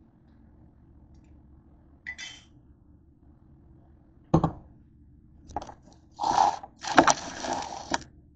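A can of refried beans being opened and handled: a brief click about two seconds in, a sharp metal clank against the counter about halfway through, then scraping and rustling of the metal can near the end.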